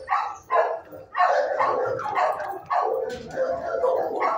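Shelter dogs barking, a steady run of barks about two or three a second with hardly a pause, fading near the end.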